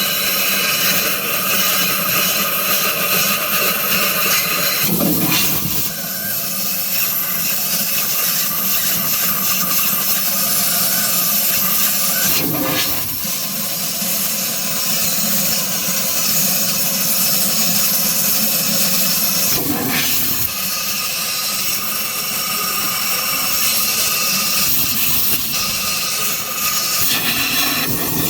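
Compressed-air blow gun hissing steadily as it blows out the oil passages of a freshly washed Volvo FH12 diesel engine block. The hiss changes briefly three times along the way.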